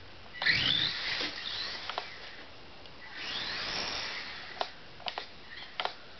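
Losi Micro-T RC truck's small electric motor whining as it speeds up and eases off, rising then falling about half a second in and again, longer, around three to four seconds in. Several light clicks and taps in between as the little truck bumps and lands.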